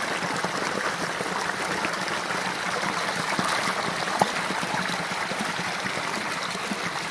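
A small stream flowing over rocks in a little cascade, a steady splashing rush of water, with one brief click about four seconds in.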